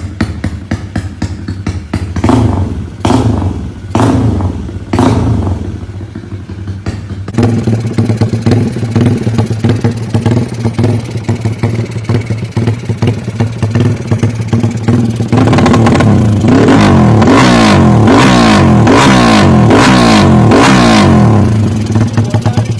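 Tuned Yamaha LC135 motorcycle's single-cylinder four-stroke engine. It is blipped sharply about four times, then runs steadily, then is held at high revs for about six seconds, rising and falling over and over, before dropping back near the end.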